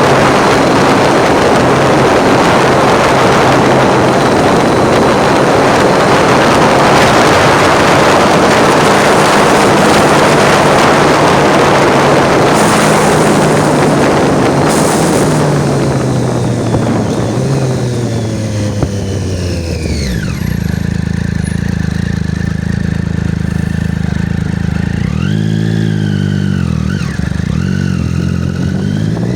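Triumph Street Triple's 675 cc inline-three engine under way, heavily buffeted by wind on the phone's microphone. About two-thirds through, the revs fall and the wind dies away as the bike slows to a steady low engine note; near the end the throttle is blipped once and then the revs rise again.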